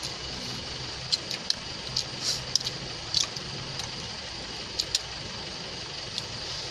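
Scattered small clicks and clinks of hands and dishes as people eat, over a steady background hiss.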